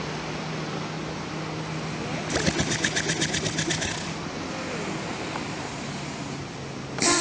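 A sleeping animal snoring: one rattling snore of rapid pulses, about ten a second, starting about two seconds in and lasting under two seconds, over a steady low hum. A short sharp noise comes near the end.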